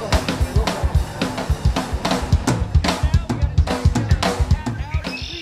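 Background music with a fast, busy drum-kit beat.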